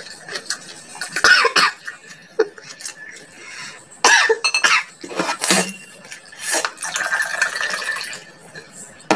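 A woman coughing several times, in separate fits, from the burn of chili-hot food (siling labuyo), with a longer hard breath or cough near the end.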